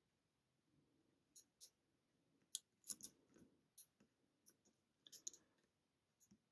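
Faint, irregular small clicks of a lock pick working the pin tumblers of a lock cylinder held under tension, about a dozen of them starting about a second and a half in. One may be a pin setting, though it is not certain whether it set.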